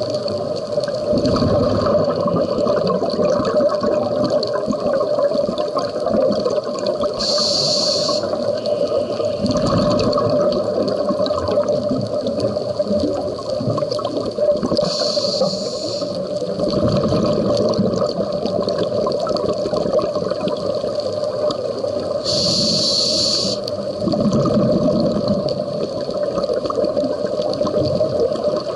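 Scuba diver breathing through a regulator underwater. There are three hissing inhales, one about every seven to eight seconds, each followed by a rush of exhaled bubbles.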